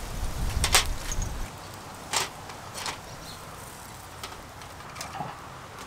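Scallops in their shells grilling on a wire rack over charcoal: scattered sharp pops and clicks over a faint hiss. A low rumble runs through the first second and a half.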